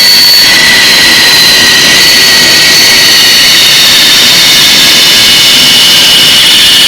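Power saw running and cutting the headstock outline from a quartersawn maple neck blank: a loud, steady high whine that drifts slowly in pitch.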